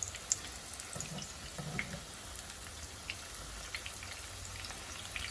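Marinated chicken pieces deep-frying in hot oil: a steady sizzle with scattered small pops and crackles.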